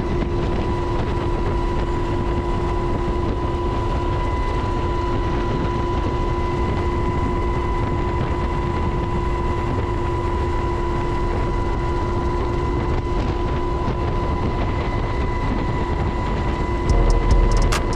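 Cabin noise of a UH-60 Black Hawk helicopter in flight with the door open: a steady rush of rotor, engine and wind with a steady gearbox whine over it. Near the end it gets briefly louder, with a low rumble and a few clicks.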